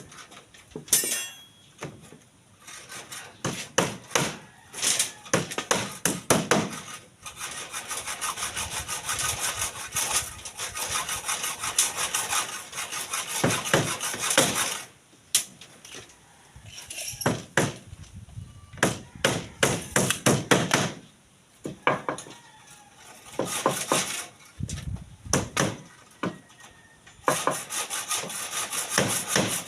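Hand saw cutting with quick back-and-forth strokes, in several spells broken by short pauses, with a few separate knocks in the first seconds.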